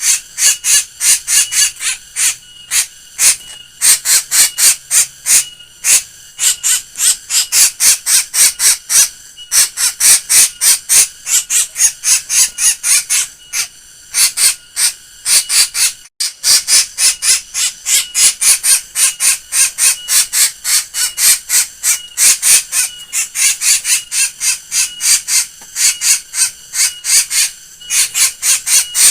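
A black bird giving a strange laughing call: fast runs of sharp, high-pitched notes, several a second, repeated in long bouts with short breaks between them.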